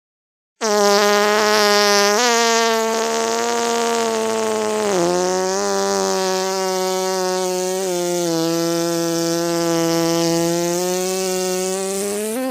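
A buzzing fly sound effect: a loud, steady buzz that starts about half a second in and dips in pitch briefly a few times.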